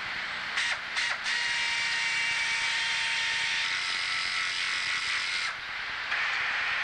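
Compressed air hissing through a VacuBlast abrasive-blasting machine, with a faint whistle. It comes as a few short blasts about a second in, then a steady rush that cuts off about five and a half seconds in and starts again half a second later.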